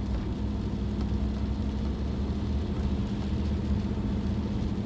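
Steady engine and road rumble heard from inside a moving car's cabin, with a constant low hum.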